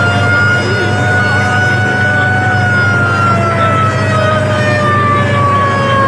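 Coaster bus horn (hooter) held in one long continuous blast, its pitch sliding slowly down through the second half, over a steady engine drone.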